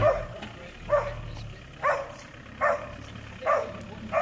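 A dog barking steadily, single sharp barks at about one a second.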